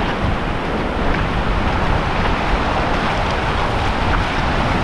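Ocean surf washing in over a shallow beach in a steady rush, with wind rumbling on the microphone.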